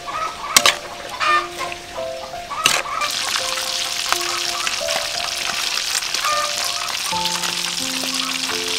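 A few soft knocks and rustles come first as shredded salad is tossed by hand in a bowl. About three seconds in, a steady sizzle starts as whole red big-eye fish grill on a wire rack over charcoal. Background music plays throughout.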